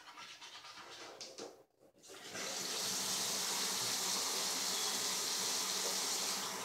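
Faint toothbrush scrubbing, then about two seconds in a bathroom sink faucet is turned on and runs steadily into the basin for rinsing.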